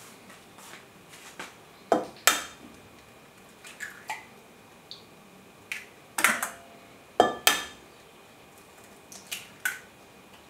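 A series of sharp taps and glassy clinks: eggs being knocked on the rim of a glass measuring jug to crack them open. The loudest knocks come about two seconds in and again around six to seven and a half seconds in.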